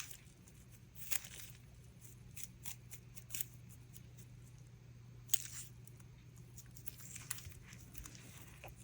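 Faint scattered clicks and rustles of hands squeezing and handling a flexible silicone mold filled with resin, over a low steady hum.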